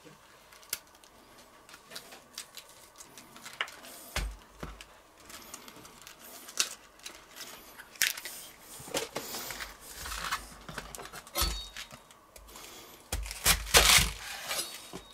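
Crisp outer leaves of a white cabbage being peeled and snapped off by hand: scattered cracks, tears and crinkles, with a few dull knocks on a wooden cutting board and a louder cluster of knocks and crunches near the end.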